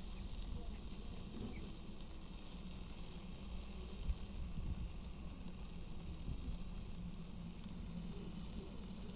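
Food sizzling on a barbecue grill: a steady hiss with small crackles and one sharper pop about four seconds in.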